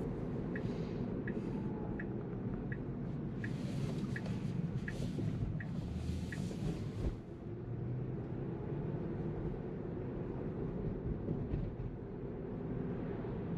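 Road and tyre noise in a Tesla's cabin while driving, a steady low rumble with no engine sound. For about the first six seconds a turn-signal indicator clicks evenly, about one and a half clicks a second.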